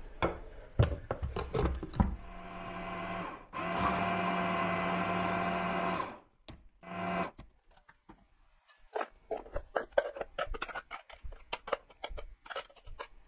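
Hand blender motor on its chopper-bowl attachment, grinding turkey breast chunks with milk into a smooth mince. It runs for about a second and a half, stops briefly, runs again for about two seconds, then gives one short pulse. In the second half come clicks and knocks as the plastic chopper bowl is handled and emptied.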